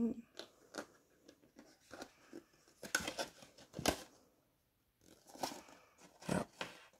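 Paper rustling and small clicks as fingers handle patterned cardstock while pushing a decorative brad through it and bending its prongs. The sounds come in short, scattered bursts, with a brief quiet gap after about four seconds.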